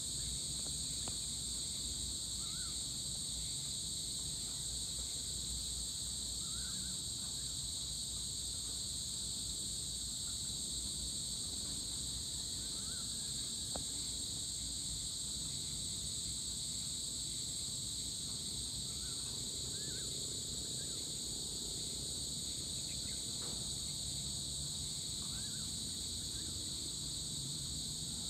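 Steady chorus of crickets and other insects, several unbroken shrill high tones layered together, with a few short faint bird chirps scattered through and a low rumble beneath.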